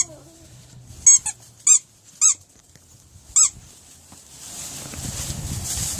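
Squeaky dog toy squeezed in short, sharp squeaks, five of them about a second apart, as a puppy chews it. From about four and a half seconds in, a steady rustling and scuffling takes over.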